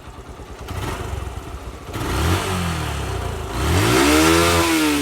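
A motor vehicle's engine: a low, even pulsing at first, then about two seconds in it revs, its pitch rising and falling and peaking near the end as the sound gets louder.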